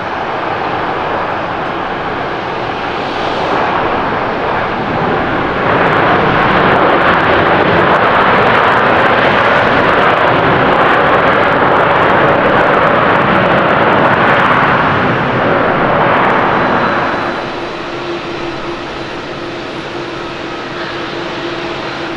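Boeing 787-10 Dreamliner's jet engines on its landing rollout: the noise swells loud about six seconds in and holds for some ten seconds as reverse thrust is applied, then drops off. Near the end a quieter, steadier jet hum with a low steady tone comes from a second Boeing 787-10 on final approach.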